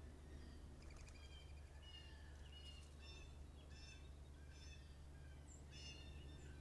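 Faint wild birds calling and singing: a series of short, harsh calls repeated about once or twice a second, over a steady low hum.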